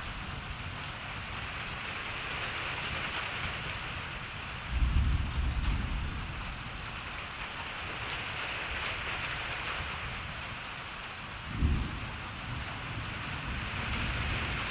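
Steady rain falling in a thunderstorm, with a low rumble of thunder about five seconds in that lasts a second or so, and a second, shorter low rumble near twelve seconds.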